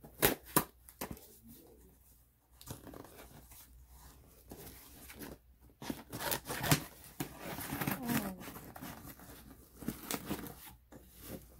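Scissors snipping through packing tape and cardboard on a shipping box, with tearing and rustling of the cardboard. A few sharp snips come in the first second, then it goes quieter, and a second run of cutting and tearing follows in the second half.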